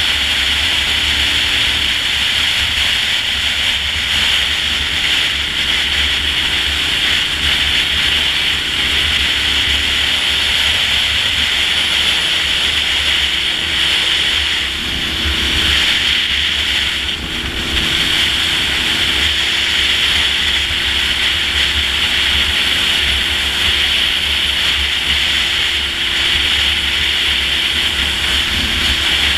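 Steady wind rush on the onboard camera microphone of a Honda VTR1000 motorcycle being ridden at road speed, with the bike's V-twin engine droning low underneath. The noise dips briefly about halfway through.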